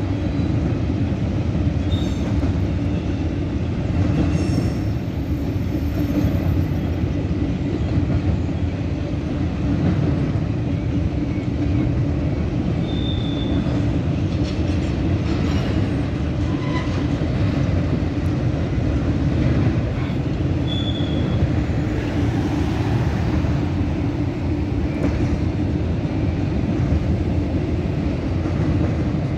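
CSX intermodal freight train of double-stack container cars rolling steadily past, its wheels rumbling on the rails, with a few brief high squeals now and then.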